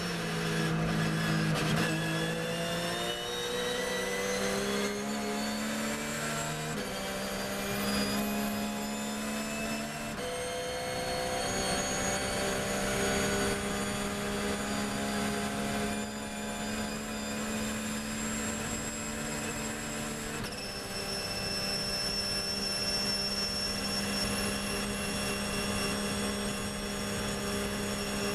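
Porsche 911 GT3 R's flat-six racing engine heard from inside the cockpit, accelerating hard under full throttle: the note climbs steadily and drops sharply at each upshift, three or four shifts in all, the climbs getting longer in the higher gears.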